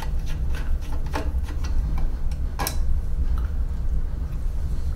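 Irregular small clicks and ticks of a hand tool turning a small screw out of a 3D printer's frame, over a steady low hum.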